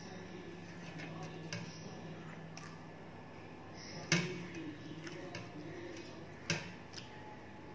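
Close-up hand-eating sounds: scattered small clicks and smacks as fingers gather rice and poppy-seed paste on a steel plate while she chews, with two sharper clicks about four and six and a half seconds in.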